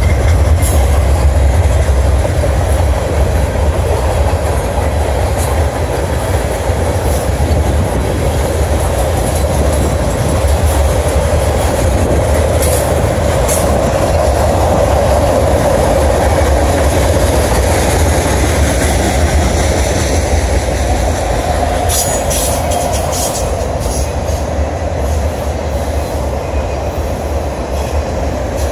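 A freight train of covered hoppers, tank cars and autorack cars rolling past close by, with a steady rumble of steel wheels on rail. Scattered clicks and knocks of wheels over rail joints come through, bunched together about 22 seconds in.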